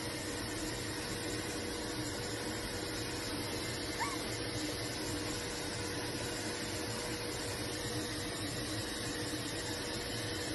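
Steady low room hum, with one faint, brief rising squeak from a Havanese puppy about four seconds in.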